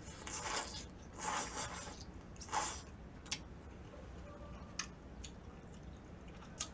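Kimchi udon noodles being slurped in three hissing draws over the first three seconds, followed by a few faint mouth clicks while chewing.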